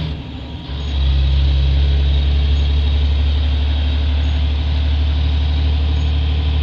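Volvo D13 inline-six diesel of a tri-axle dump truck running under load while plowing snow: a steady low drone that dips briefly in the first second, then comes back stronger and holds steady.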